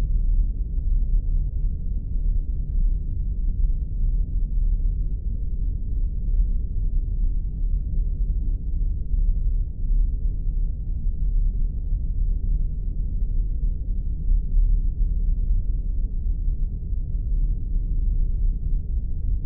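Science-fiction spaceship sound effect: a steady, deep rumbling drone that sits low down and does not change.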